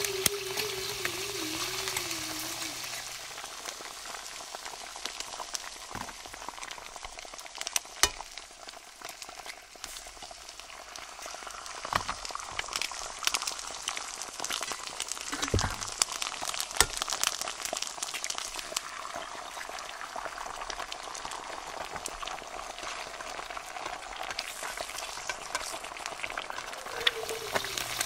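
Eggs frying in a pan: a steady sizzle with scattered pops and crackles. A wavering high-pitched tone is heard for the first two or three seconds.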